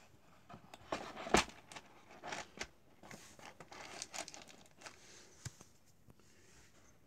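Handling noises of a WE airsoft Colt 1911 replica being set down into the moulded cardboard insert of its box: a run of knocks, clicks and rustles, the loudest a sharp knock about a second and a half in.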